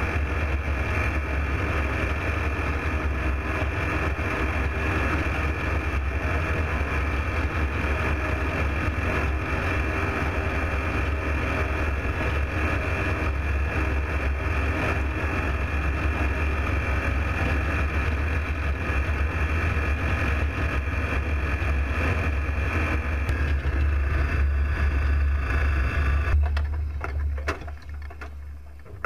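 Aeroplane engine and propeller droning steadily in flight, with a strong low hum and a steady haze of noise over it. The drone falls away sharply near the end.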